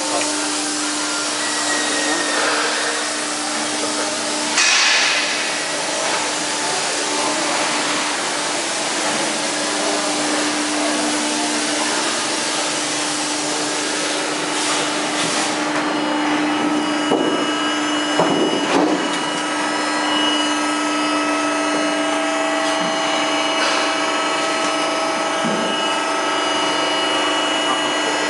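Hydraulic pump and motor of an Ermak HAP 1270x35 CNC hydraulic press brake running: a steady hum with one constant tone over a hiss. A short louder burst of noise comes about five seconds in, and a few brief clatters come a little past the middle.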